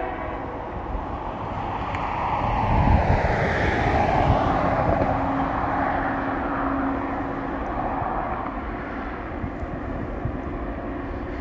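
A car drives past on the road. Its tyre and engine noise swells to a peak about three to four seconds in, then fades as it drives away.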